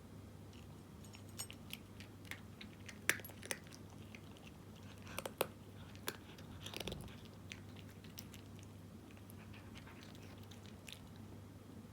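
A cat crunching dry kibble: irregular sharp crunches, the loudest about three and five seconds in, then quieter chewing toward the end.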